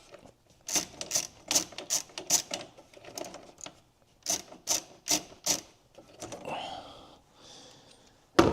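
A ratchet with a 10 mm socket clicking in two quick runs of evenly spaced clicks as the bolt holding the purge valve solenoid is backed out, followed by soft scraping and a sharp click near the end.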